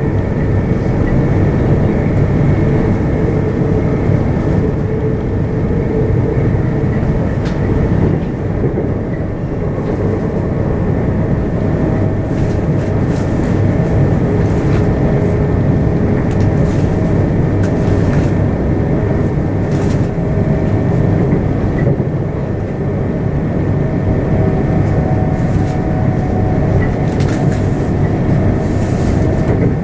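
c2c electric passenger train running along the line: a steady rumble with faint whining tones that come and go, and a few short clicks from the track.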